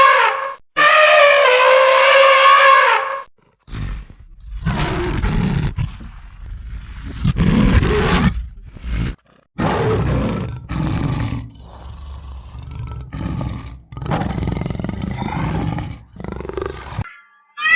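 A big cat roaring and growling in a series of rough, deep calls with short breaks between them. Before it, for about the first three seconds, a different animal gives a long pitched call, twice.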